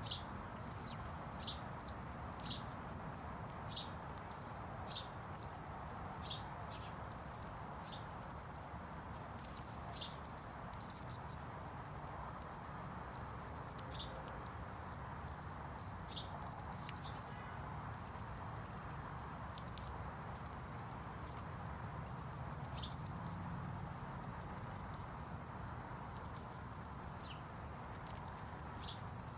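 A steady high-pitched insect drone, with frequent short, sharp bird chip notes, some single and some in quick runs.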